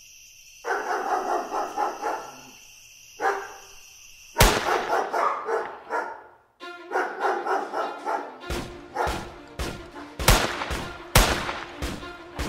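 Audio-drama sound effects: crickets chirping under dogs barking in quick runs, then a sudden loud bang about four seconds in. Gunshots follow in the second half, coming faster toward the end.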